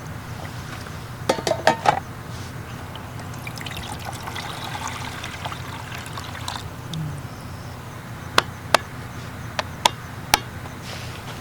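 Liquid pouring or trickling into a container, with a cluster of clicks before it and several sharp single clicks or taps near the end.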